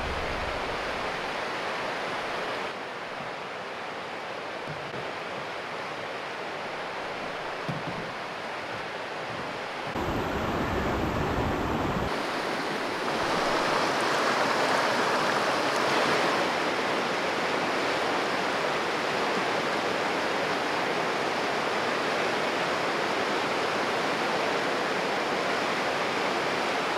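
River rapids running: a steady rush of whitewater, its level and tone changing abruptly a few times.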